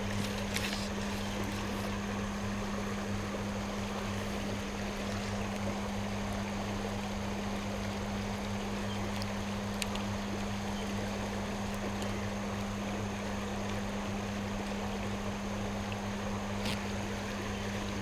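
Steady rush of water over a shallow, rocky creek riffle, with a constant low electrical hum underneath from a GoPro that took in water through its charging port. A couple of faint ticks stand out briefly.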